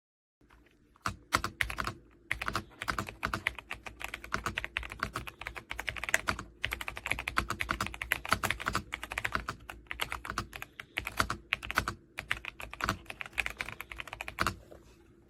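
Typing on an RK Royal Kludge S98 mechanical keyboard with pale green tactile switches and PBT keycaps: fast, continuous keystroke clatter with a few brief pauses, stopping shortly before the end.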